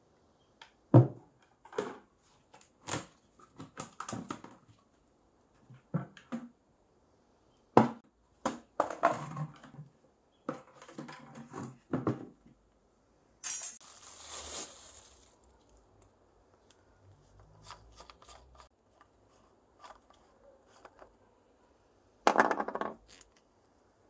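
Empty plastic paint bucket being handled and its snap-on lid pried off: irregular hollow plastic knocks, clicks and creaks, with a short scraping noise a little past the middle.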